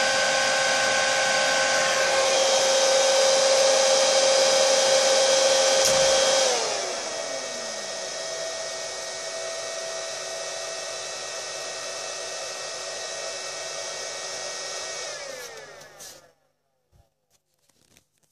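Dell 2.1 kW server power supply's cooling fans running at high speed with a loud whine of several steady tones. About six seconds in, a click is followed by the pitch sliding down as the fans slow to a lower, quieter speed; near the end they wind down and stop.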